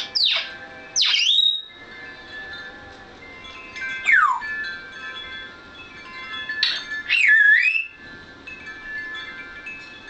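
African grey parrot whistling four times: three loud sweeps falling in pitch at the start, about a second in and about four seconds in, then a longer whistle around seven seconds that dips and rises again. Faint, steady chime-like ringing tones sound underneath.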